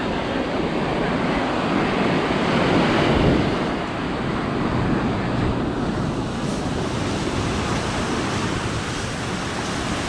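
Ocean surf washing onto a sand beach as a steady rushing noise, with wind buffeting the microphone; the surf swells a little louder about three seconds in.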